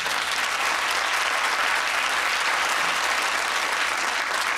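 Studio audience applauding steadily: dense, even clapping with no break.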